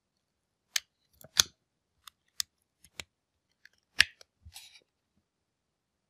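Sharp plastic clicks and knocks of a USB-C cable plug being pulled out of and pushed into a device's charging port while the hard plastic tools are handled, about seven clicks with the loudest about a second and a half in and at four seconds in, followed by a brief rustle.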